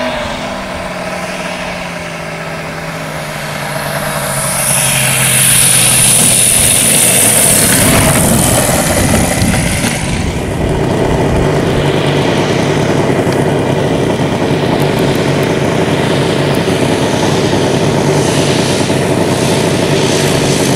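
RC model aircraft engines: in the first few seconds an engine's pitch falls as it is throttled back, a loud hiss follows, and from about ten seconds in another engine runs steadily.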